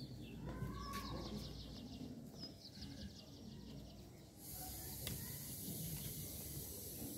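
Quiet outdoor ambience with small birds chirping in short, quick trills; a faint high hiss sets in about halfway through.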